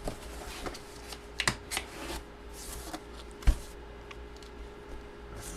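Handling of cards and their packaging on a table: scattered light clicks and rustles, with one sharper knock about three and a half seconds in.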